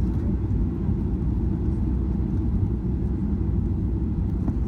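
Steady low rumble of a Boeing 737-700 heard inside the passenger cabin, from its engines and the rush of air or runway.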